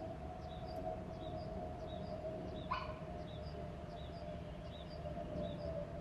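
Outdoor birds chirping: a short two-note chirp repeats steadily about two to three times a second over a steady low hum. A single short, sharp rising call cuts in about halfway through and is the loudest sound.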